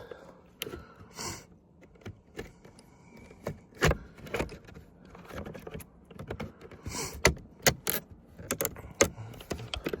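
Irregular plastic clicks and knocks as a carbon fibre mirror cap is pushed hard onto a car's side-mirror housing, its clips being pressed in.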